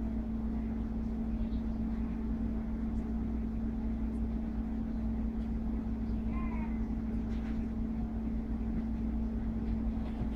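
Steady low hum with constant background noise. About six seconds in, a brief high-pitched call sounds once.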